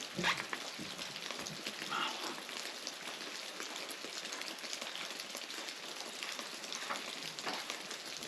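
Steady background hiss with a few faint ticks and knocks.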